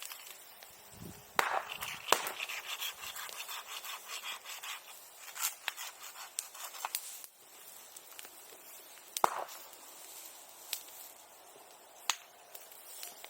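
Bonfire of old wooden sericulture tools crackling, with a dense run of crackles in the first half and a series of sharp, firecracker-like pops.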